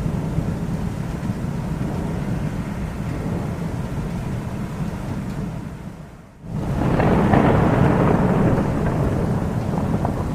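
Thunder rumbling steadily. About six seconds in it drops away briefly, then a louder peal swells up and slowly rolls off.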